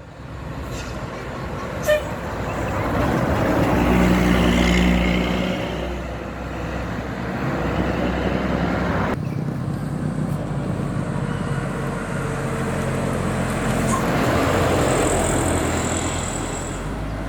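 Large buses' diesel engines running as they drive past in a convoy, with road traffic noise; the engine sound swells twice, loudest about four seconds in and again near fourteen seconds, and breaks off abruptly about nine seconds in.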